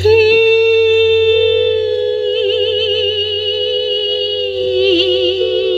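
Background music: one long held note, steady at first, stepping up slightly about a second in, then wavering with vibrato from about two seconds in.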